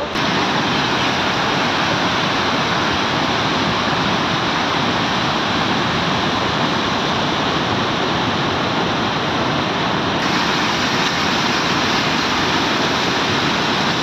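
Ripple Waterfalls in spate, a large volume of muddy floodwater rushing and churning over rocks in a loud, steady, unbroken roar.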